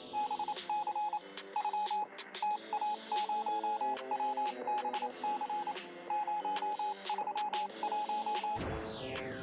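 Electronic background music with a steady bed of notes and a repeated string of short, same-pitched beeps, ending with a falling sweep about eight and a half seconds in.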